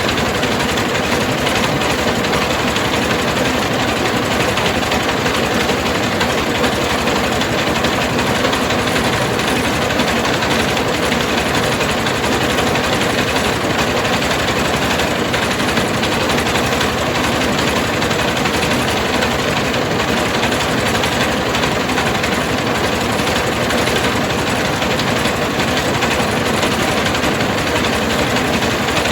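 Mobile rice milling machine running steadily: its engine and milling works give a loud, even mechanical din that does not change.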